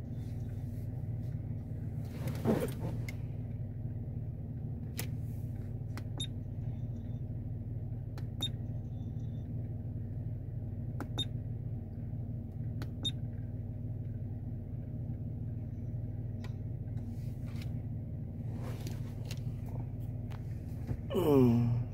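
Steady low rumble of a car running, heard from inside the cabin, with a few faint short ticks scattered through it and a brief louder sound falling in pitch near the end.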